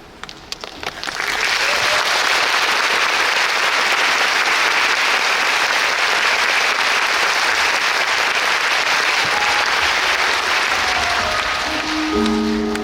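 Concert hall audience applauding: a few scattered claps, then a full, steady round of clapping about a second in. Near the end, instrumental notes of the next song begin under the applause.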